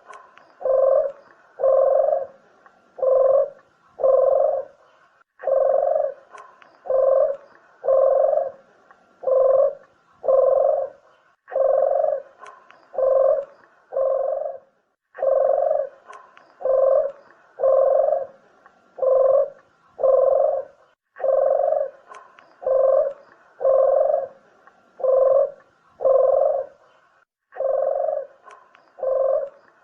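Puter dove cooing, a low hollow coo repeated over and over in runs of five or six notes with short breaks between runs. It is a lure call played to draw in wild doves.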